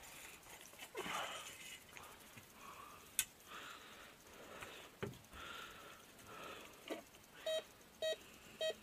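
Metal detector giving three short, clear beeps near the end as its search coil passes over a buried metal target, after a few seconds of faint scraping in the dirt and an odd sharp click.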